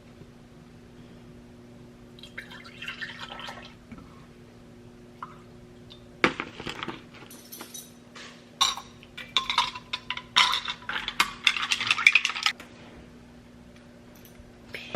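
Dishes, glass and cutlery clinking and clattering, with liquid being poured, as coffee is made; a run of sharp clinks lasts most of the second half, over a steady low hum.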